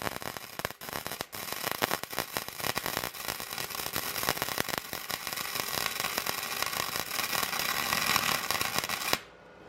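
Arc welder crackling steadily as a nut is welded onto a broken exhaust manifold stud in the cylinder head, to give the stud something to be backed out with. The arc cuts off abruptly about nine seconds in.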